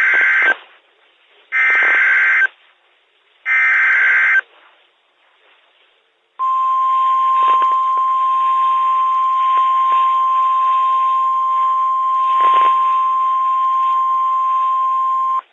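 NOAA Weather Radio SAME header: three one-second bursts of screeching digital data tones about two seconds apart. After a short pause comes the steady single-pitch 1050 Hz warning alarm tone, held for about nine seconds over faint radio hiss. The tones announce a tornado warning.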